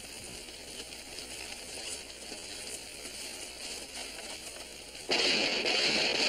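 A steady, faint hiss of outdoor ambience, then about five seconds in loud guitar music comes in suddenly.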